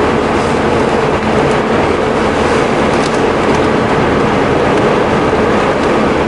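Car interior noise while driving: engine and road noise heard inside the cabin as a steady drone.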